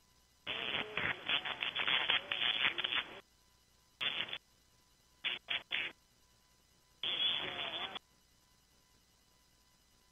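A voice received on 20-metre single-sideband coming through the radio's audio in four broken stretches, thin and telephone-like with no treble from the receive filter, with dead gaps between them.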